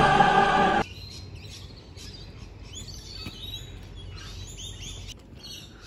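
Orchestral music cuts off under a second in, leaving birds chirping and calling outdoors over faint background noise.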